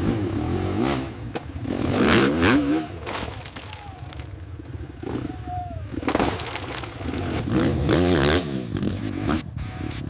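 Dirt bike engine revving up and down in surges, with scraping and clattering knocks.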